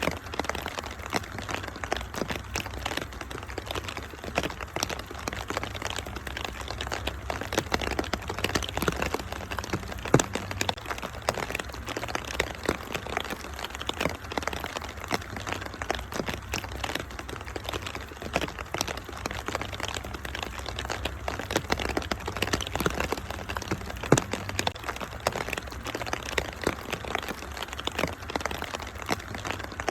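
Wood fire crackling with a dense run of small pops and snaps over steady rain and a low rumble, with two louder pops about ten seconds and twenty-four seconds in.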